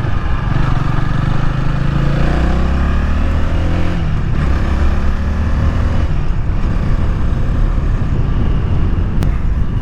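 Honda Rebel 300 motorcycle's single-cylinder engine running under way, its note shifting in pitch over the first few seconds and then evening out, over steady road and wind noise.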